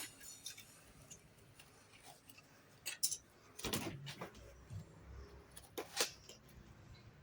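A few scattered knocks and clicks, some in quick pairs, over a faint low hum that comes in about halfway through.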